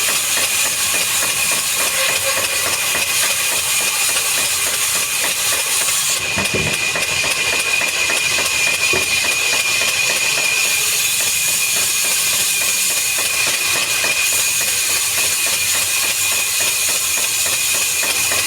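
Woodworking machinery running steadily, a loud hiss carrying a constant high whine, with one brief thump partway through.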